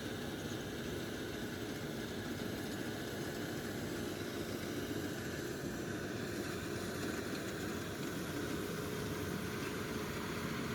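An engine running steadily, with an even hum and no change in speed.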